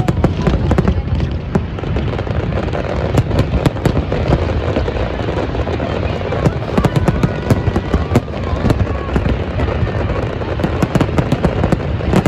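Aerial fireworks going off in quick succession: a dense, continuous run of bangs and crackling bursts, many shells overlapping.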